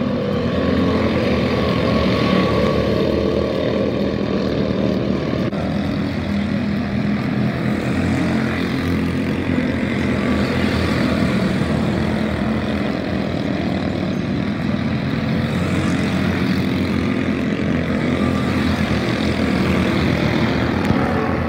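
Several quarter midget race cars' small single-cylinder engines running at racing speed around a small oval, making a steady layered engine drone.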